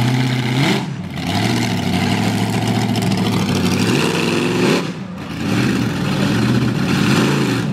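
Monster truck engine running under throttle as the truck drives, revving up and easing off: the pitch climbs, drops sharply about a second in and again about five seconds in, then climbs again.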